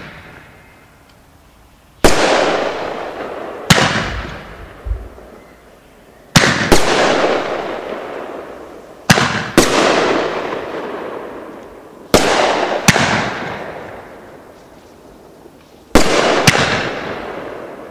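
A 500-gram finale rack of nine 3-inch mortar tubes firing aerial shells: loud, sharp bangs, mostly in close pairs, every three to four seconds. Each bang trails off in a long fading hiss.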